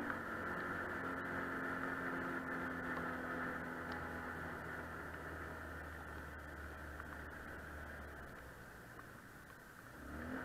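Quad bike (ATV) engine running steadily while riding, heard from the machine itself, easing off and growing gradually quieter in the second half.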